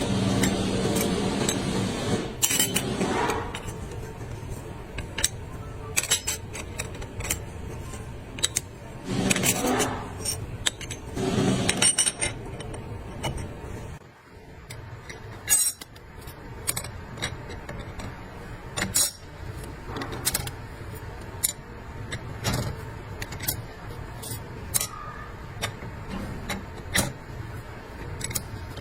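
Metal parts and hand tools clinking and knocking at irregular intervals, with a few short scraping or rustling noises in between, as a transmission is worked on by hand.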